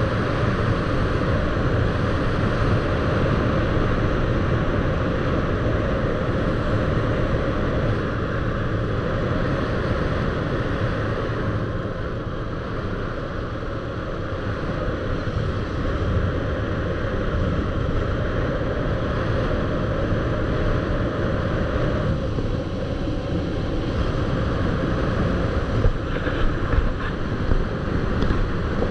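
Steady noise of a moving vehicle mixed with wind buffeting the microphone, with a few sharp knocks near the end.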